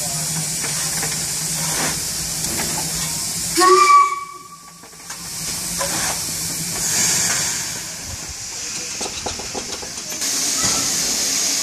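Steam hissing steadily from a standing 1877 Avonside L-class steam locomotive, venting from low at the front near its cylinders, with a short whistle toot just under four seconds in. Afterwards the hiss drops away for a moment, then builds again.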